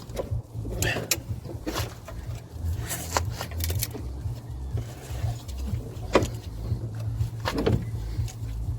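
Scattered sharp knocks and clinks from hands and parts working on a car's front suspension as the lower control arm is fitted back into the hub, over a steady low rumble.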